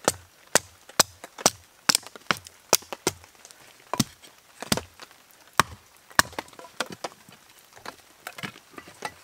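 Hatchet splitting dry sticks into kindling: a quick, uneven run of sharp chops, about two a second, as the blade bites into the wood and splits it.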